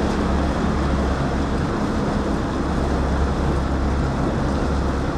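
Bass boat running under its outboard motor: a steady drone mixed with wind and water noise.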